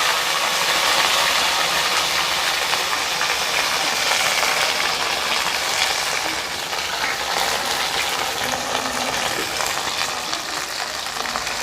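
Cut okra frying in a kadai of hot oil: a steady crackling sizzle that eases a little as it goes on.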